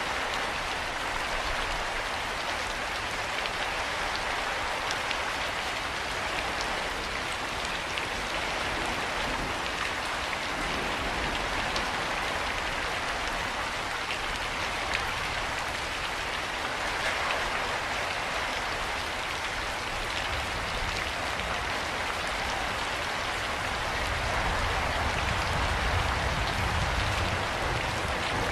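Steady rain falling and pattering on surfaces in an even hiss. A low rumble swells in underneath near the end.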